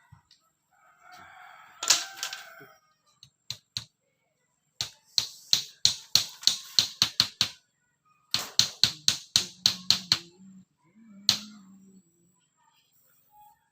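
Hammer blows on bamboo, sharp knocks in quick runs of about four a second, most likely nails being driven while building a bamboo chicken fence.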